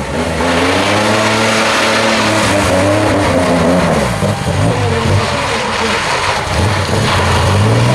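Ford Falcon's straight-six engine revving up and down again and again as the car spins doughnuts, over a steady hiss of tyres churning loose dirt.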